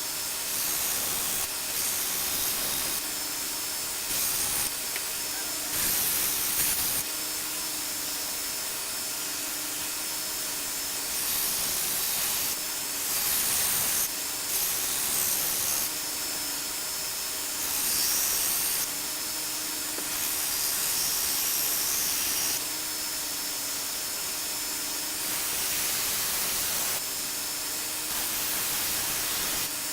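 A 1x42 belt sander runs with a steady hum and hiss while a steel cleaver blade is pressed against the belt to grind its bevel. The pressure comes in repeated passes of a second or two, each a brighter, louder grinding hiss.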